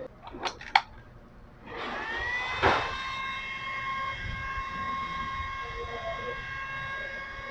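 Miltec MMA-300G inverter welding machine powered on for its first test after IGBT replacement. There are a couple of short switch clicks. Just before two seconds its cooling fan spins up with a rising whine that levels into a steady hum, with one sharp click soon after.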